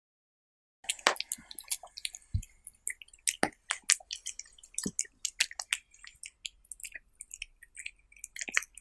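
Cat eating raw meat off a skewer, close up: wet chewing, licking and smacking, a quick run of sharp clicks several times a second that starts about a second in after dead silence.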